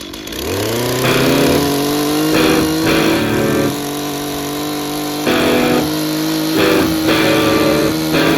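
Chainsaw revving up to full throttle over the first second, then held at high, steady revs, with several short bursts of cutting noise as the chain bites into wood.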